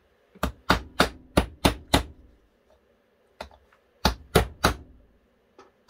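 Brass hammer tapping a retaining pin back into a Browning Auto-5 shotgun's bolt on a wooden armorer's block. About six quick taps, a pause, then three more.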